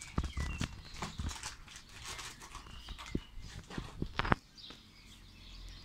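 Handling noise as a camera is moved and set in place: irregular knocks, clicks and rubbing, with the loudest knock about four seconds in.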